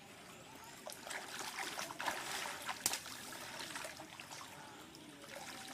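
Shallow floodwater splashing and trickling as people wade through it, with irregular small splashes.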